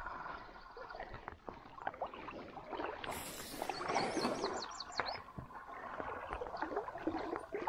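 Creek ambience: water gurgling with small rustles and clicks. A bird sings a quick trill of about eight high notes about four seconds in.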